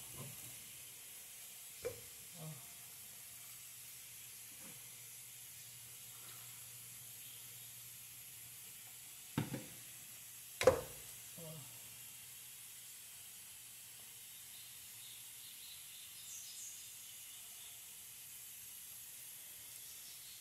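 Steady faint hiss of steam from a pressure cooker of beans cooking on the stove. A few short knocks from a plastic funnel and bags being handled at a steel sink break in, the loudest about ten seconds in.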